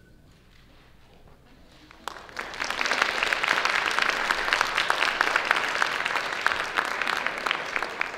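Audience applauding: the clapping starts about two seconds in after a short lull, holds steady, and tapers off near the end.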